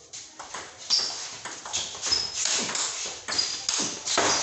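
Table tennis rally: a quick, uneven series of sharp clicks as the plastic ball strikes the rubber paddles and the table, some with a brief high ping. Feet scuff on the concrete floor between shots.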